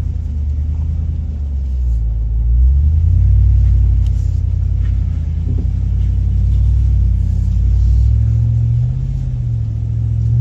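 2024 Ram Power Wagon's 6.4-litre HEMI V8 running at low revs under load as the truck crawls up a rocky ledge, heard from inside the cab as a steady low rumble. The engine note shifts up and down a little and rises near the end.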